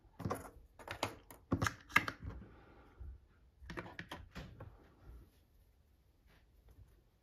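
Diamond-painting tools (small plastic boxes, a metal drill pen) picked up and set down on a cutting mat: a run of light clicks and knocks, thickest in the first two seconds and again around four seconds in, then thinning out.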